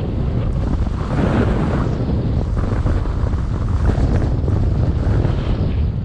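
Wind buffeting the microphone of a snowboarder's GoPro during a fast downhill run: a loud, steady low rumble. Over it, the snowboard's edge hisses and scrapes on the packed snow in swells that rise and fall as the rider turns.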